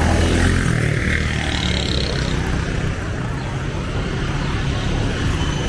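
Street traffic with small engines running close by in a steady drone, including an auto-rickshaw passing.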